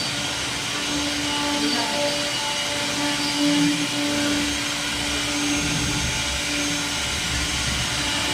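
CNC wood router running on its trial: a steady whine with overtones over a rushing air noise.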